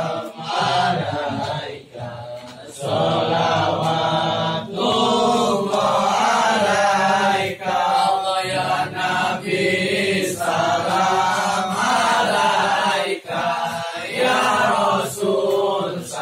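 A group of men chanting Islamic devotional prayers (shalawat) together in Arabic, in long melodic phrases broken by short pauses for breath.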